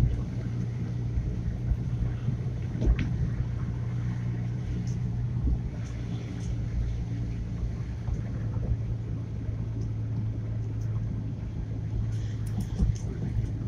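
A car's engine and tyre noise heard from inside the cabin while driving down a mountain road: a steady low drone, with a few short knocks, one about three seconds in and several near the end.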